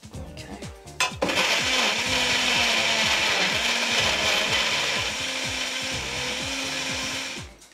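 Electric blender running steadily, puréeing tomatillos, green chillies, coriander and pork stock into a green mole sauce. It starts abruptly about a second in and cuts off near the end.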